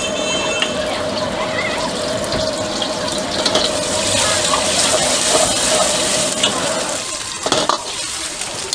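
An egg frying in hot oil in a wok, sizzling steadily, while a metal ladle stirs and scrapes it against the pan.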